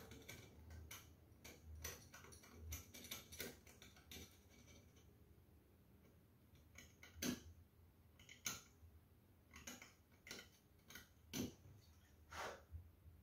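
Faint, irregular small metallic clicks and taps from soldering work on the heating-element terminal of a Bosch/Siemens dishwasher heater pump, the soldering iron and the metal part knocking lightly together. The clicks come one at a time with gaps of about a second, with a quiet spell midway.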